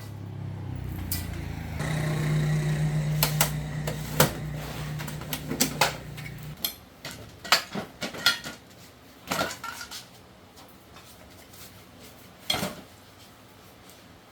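A mini corn thresher's motor running with a steady hum that gets louder about two seconds in, then stops at about six and a half seconds. Metal clanks and knocks come throughout and go on after it stops.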